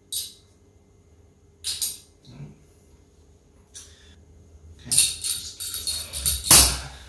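A few sharp metallic clicks as small metal wheel parts are handled. Then, from about five seconds in, a clatter of rattles and knocks as a scale RC crawler chassis is lifted and set down on a table, with one heavier thump near the end.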